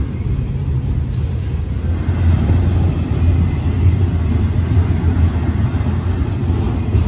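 Double-stack intermodal freight train's loaded well cars rolling past, a steady low rumble of steel wheels on rail that grows a little louder about two seconds in.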